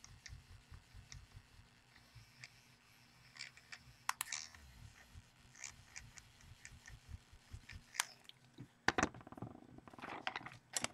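Light rubbing and scattered small clicks of a tool worked against a colouring-book page, lifting off pastel pencil. There is a sharper click about nine seconds in, followed by a short scratchy rub.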